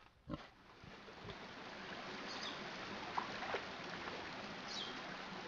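Rippling river water: a steady wash that comes in about a second in, after a short grunt from a warthog right at the start. Two faint high chirps sound over the water.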